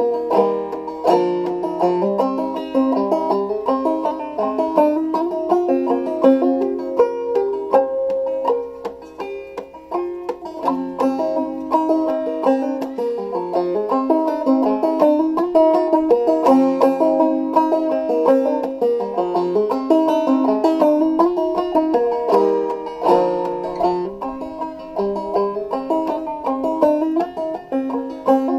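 Solo five-string banjo played clawhammer style, tuned fDGCD but a bit lower: a crooked old-time fiddle-style tune in quick, continuous plucked notes over a ringing drone string.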